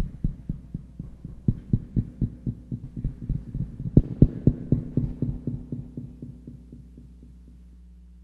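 A low drum struck over and over in a steady run of about four beats a second, swelling and then fading out, as in a drum sound check. A steady low electrical hum runs underneath.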